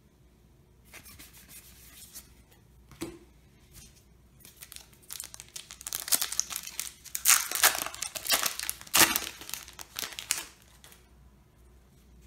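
Foil Yu-Gi-Oh! booster pack wrapper being torn open and crinkled by hand: faint rustling first, then a run of crackling rips and crinkles that is loudest past the middle.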